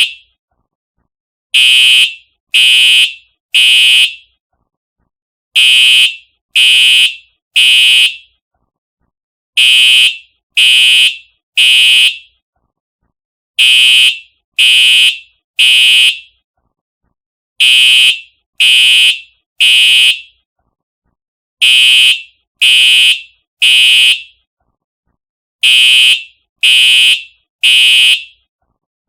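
Simplex TrueAlert fire alarm horn sounding loud, harsh blasts in groups of three, each group repeating about every four seconds with silence between: the temporal-three evacuation signal.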